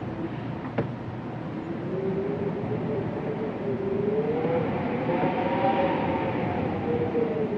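Wind moaning: a hollow, wavering tone that slides slowly up and down in pitch over a rushing hiss, rising and swelling about five seconds in before sinking again. A faint click comes just under a second in.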